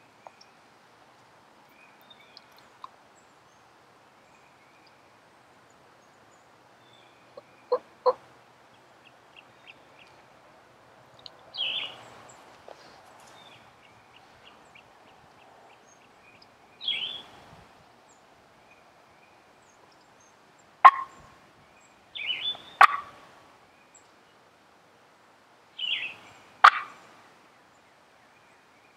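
Wild turkey gobbler gobbling several times, the gobbles starting about a third of the way in and coming closer together near the end.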